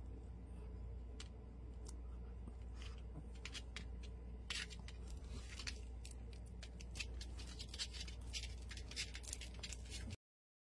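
Small dog chewing on a plush toy: a run of short, sharp clicks and crackles that grows denser in the second half, over a steady low hum. The sound cuts off suddenly near the end.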